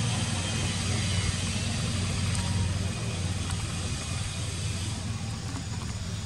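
A steady low engine rumble with a hiss over it, easing off a little in the second half.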